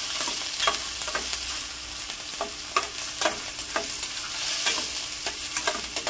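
Sliced onion and ginger sizzling in hot oil in a stainless steel pan while being sautéed, with a metal spoon clinking and scraping against the pan at irregular intervals as it stirs.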